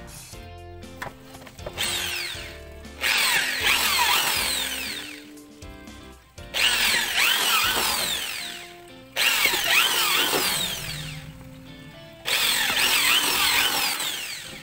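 Small power drill running in several bursts of two to three seconds each, the pitch sweeping as it spins up and bites. Background music plays underneath.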